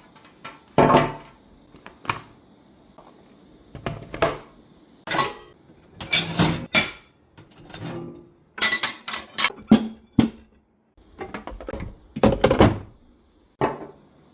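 Household containers and dishes being handled and set down: a series of irregular knocks and clatters, some in quick clusters.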